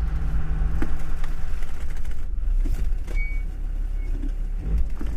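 Land Rover Defender 110's Td5 five-cylinder turbodiesel running under load as the truck pushes through deep snow, a loud, steady low rumble whose note shifts about two seconds in, with a few scattered light knocks.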